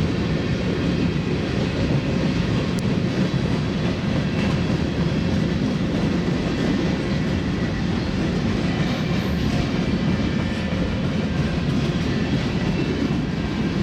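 Manifest freight train rolling past: a steady rumble of the cars' wheels on the rails.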